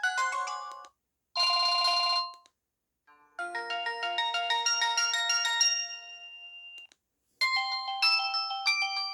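Samsung GT-E1080W mobile phone ring and message tones played one after another. One electronic melody ends just under a second in, a short one-second tone follows, then a chiming melody of about three and a half seconds, and another melody starts about seven and a half seconds in.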